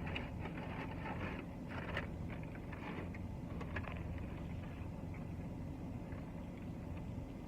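Soft chewing and mouth clicks, mostly in the first few seconds, over a steady low hum of an idling car.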